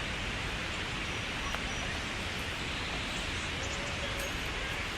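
Steady outdoor hiss with faint, distant voices.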